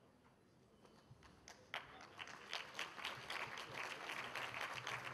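Audience applause, starting about a second and a half in with scattered claps and quickly building to steady clapping.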